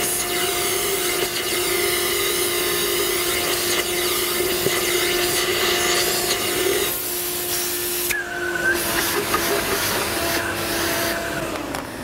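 Industrial vacuum running with a steady whine and a sucking hiss as its hose nozzle clears drilling dust from a hole drilled in concrete. The hiss drops away about eight seconds in, and the motor begins to wind down, its pitch falling, near the end.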